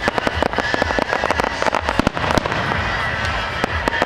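Aerial fireworks display: a dense, continuous run of pops and bangs from bursting shells.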